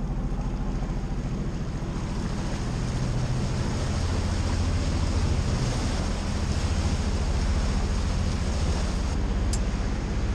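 Boat engine running under way with a steady low drone, over the rush of the churning wake and wind buffeting the microphone.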